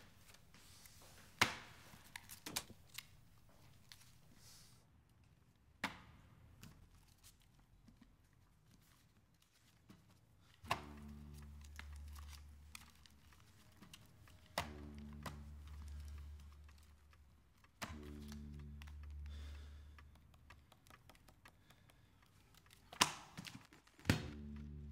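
Banknotes rustling as they are handled, with sharp clicks from the briefcase, two of them near the end as the latch is worked. From about ten seconds in, a low, deep drone sounds four times, each lasting about three seconds.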